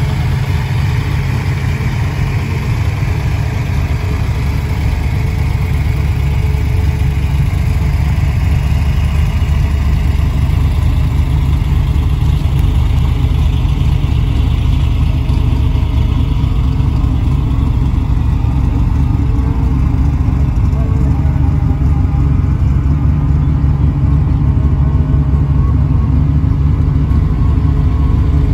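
1964 Chevy II's 406 V8 idling steadily.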